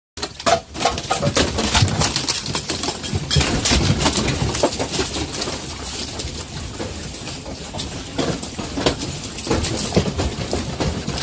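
Household objects rattling and clattering in quick, irregular knocks as a strong earthquake shakes the room, over a continuous low rumble.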